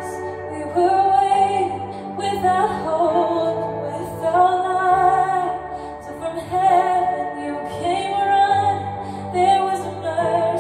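Slow worship song: a woman singing long, held notes over sustained bass and accompaniment.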